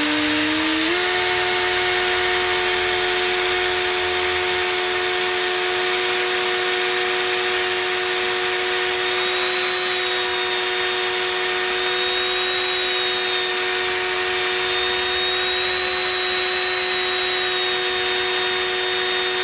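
Dremel rotary tool with a sanding drum grinding down a small bolt spun in a cordless drill's chuck, both motors running together: a steady high whine over a grinding hiss. One motor's pitch climbs and settles about a second in.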